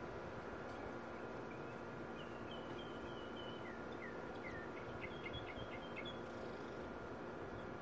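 A small bird singing in the background: a run of short chirps and whistled notes, some sliding down in pitch, ending in a quick series of notes, over a steady low hum and hiss.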